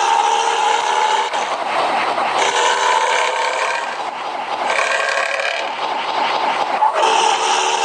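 Langsung Jaya bus sound, the kind its enthusiasts call 'batuk berdahak' (phlegmy cough): a loud, continuous pitched tone with several overtones that shifts in pitch every second or so.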